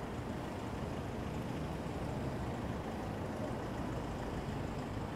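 Road traffic: cars driving slowly past with engines running, a steady low rumble without sharp sounds.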